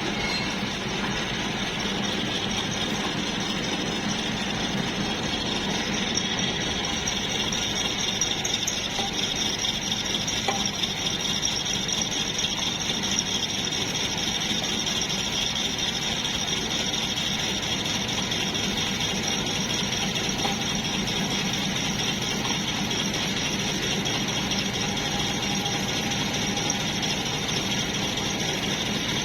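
Steady, continuous metalworking noise, with a machine running without pause while metal is worked.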